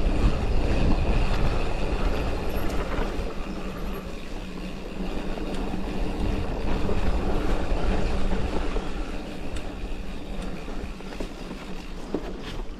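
Mountain bike rolling over a rough, rutted forest trail: tyres rumbling on the dirt and the bike rattling steadily, with wind rushing on the action-camera microphone.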